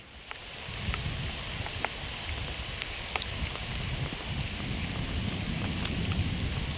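Hail falling, a steady patter with scattered sharp clicks of individual hailstones striking.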